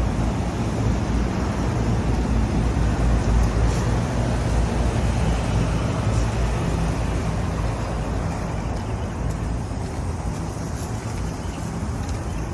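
Lennox rooftop package HVAC units running: a steady low hum with a broad rush of air.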